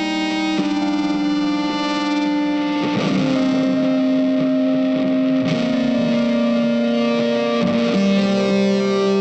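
Background music: electric guitar playing slow, long-held notes with effects, the pitch changing every second or two.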